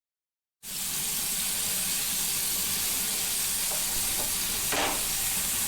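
Chicken sizzling in a hot grill pan: a steady frying hiss that starts suddenly about half a second in, with one short louder burst of sizzle near the end.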